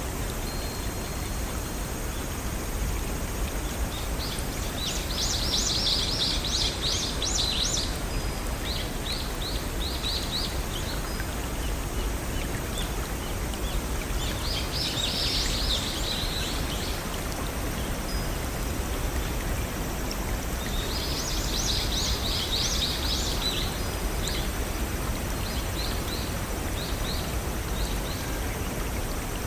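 Steady rush of a small brook running over rocks, with a songbird singing three bouts of rapid high notes, each trailing off into a few softer notes.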